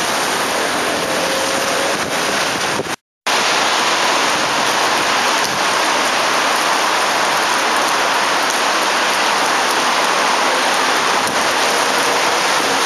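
Steady rain hiss, an even noise without any tone; the sound drops out completely for a moment about three seconds in.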